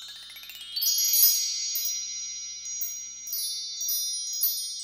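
Metal chimes: a rising run of high ringing notes in about the first second, then the notes ring on, with a few more struck near the end.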